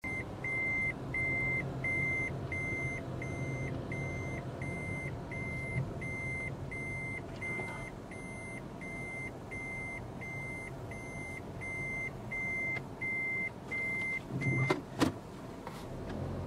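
A vehicle's electronic warning beeper sounding a steady, evenly spaced series of high beeps, about two a second, over a running engine. The beeping stops near the end and is followed by a couple of sharp knocks.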